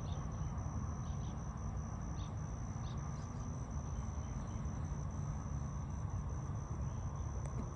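Insects calling in one steady high-pitched drone over a constant low rumble, with a few faint short chirps.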